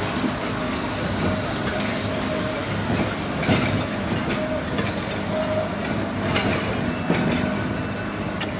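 Blackpool tram running along the track: a steady mechanical hum with tones that come and go, and scattered clicks of the wheels over the rails.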